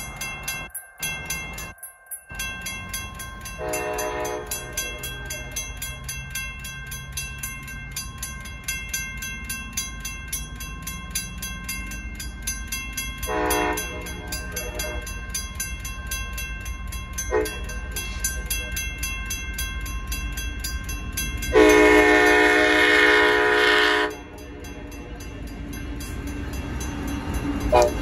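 Railroad crossing bells ringing steadily while the approaching Union Pacific freight's lead locomotive, EMD SD70AH-T4 UP 3012, sounds its horn in the grade-crossing pattern: two long blasts, a short one, then a final longer blast. The train's rumble builds near the end as the locomotives reach the crossing.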